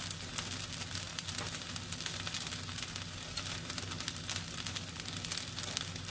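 Fried rice noodles sizzling and crackling in a stainless steel pan as they reheat on the stove, a sound the cook takes as the sign they are done. A steady low hum runs underneath.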